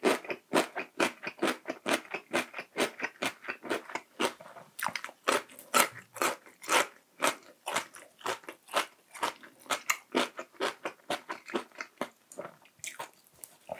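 Close-miked crunchy chewing of chonggak (ponytail radish) kimchi: a steady run of sharp, wet crunches, about three a second.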